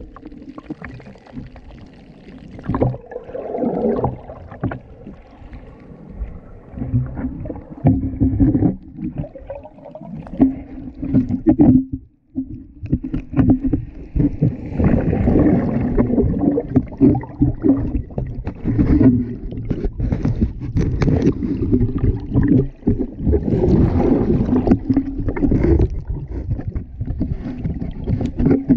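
Muffled underwater water noise: low rumbling and sloshing with many small knocks, and a low hum that comes and goes. It briefly drops out about twelve seconds in.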